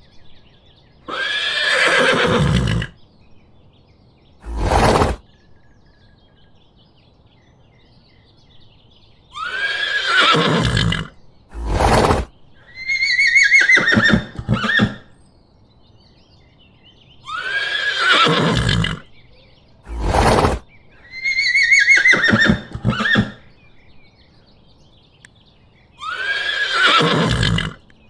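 Horse whinnying: about six long neighs, each starting high and falling in pitch with a quaver, with short bursts between some of them and quiet gaps between the calls.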